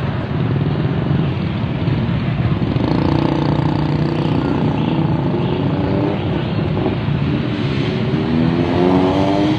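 A motor vehicle engine running, its pitch rising near the end as it revs or accelerates, over a steady background rumble.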